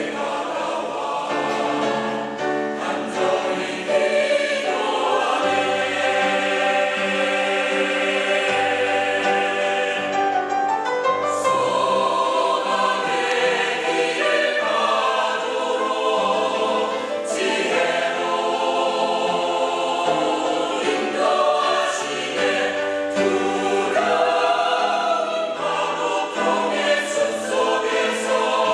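Church choir singing a sacred anthem in several voice parts, moving through sustained chords.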